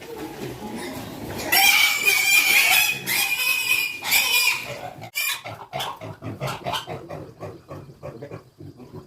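Piglets squealing loudly and shrilly for about three seconds, starting about a second and a half in, followed by a run of short grunts several times a second.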